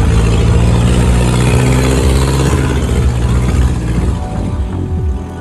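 Engine of an off-road SUV running steadily as it drives slowly along a dirt trail.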